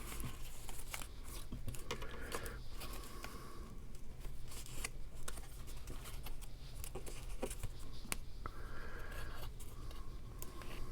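Faint rustling and light scattered taps of paper cardstock being handled and pressed into place by hand, over a low steady hum.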